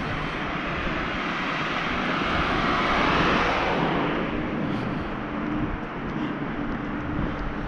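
A vehicle passing on the street: its noise swells to a peak about three seconds in and then fades away.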